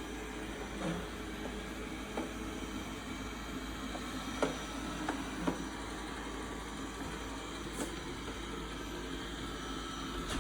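Dreame D9+ robot vacuum running as it drives back to its charging dock, a steady mechanical whir with a few small knocks.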